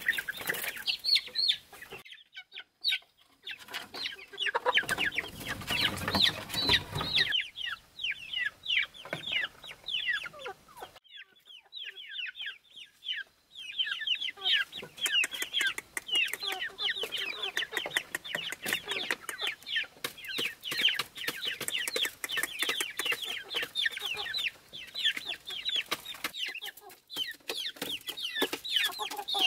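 Chickens in a coop: many young chicks peeping rapidly in short falling cheeps, with some clucking from hens. A stretch of louder noise comes a few seconds in, and the peeping breaks off briefly twice.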